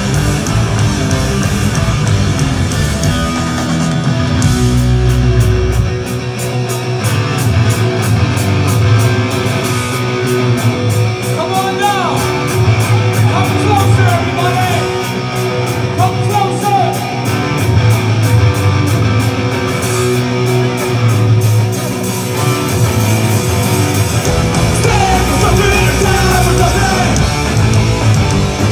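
Punk rock band playing live with electric guitars and drums, a vocalist singing from about twelve seconds in.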